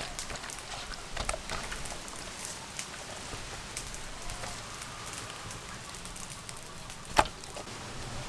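Hands squishing and rubbing a sauce-soaked marinade into a whole raw duck in a metal bowl: wet squelching with many small clicks and splats. One sharp knock about seven seconds in.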